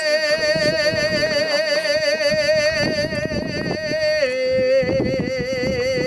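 A singer holding a long high note with wide vibrato, stepping down to a slightly lower held note about four seconds in, like the closing phrase of a song.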